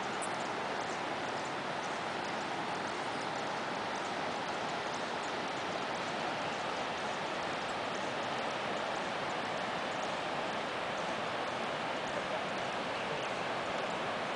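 The Savegre River's rushing white water, a steady even hiss with faint high bird chirps over it.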